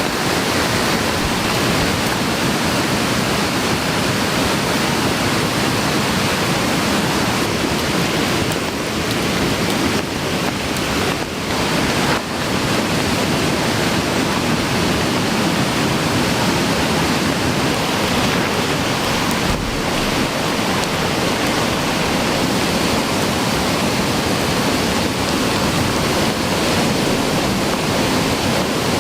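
Steady, loud rushing of water from heavy rain and a swollen stream in spate.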